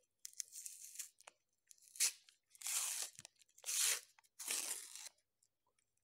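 Paper wrapper of a Cornetto double-chocolate ice-cream cone being torn and peeled off in a series of sharp rips, about five in all.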